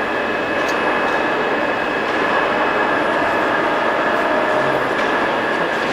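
CNC lathe running with a superfinishing attachment working the workpiece: a steady, even machine noise with a constant high whine.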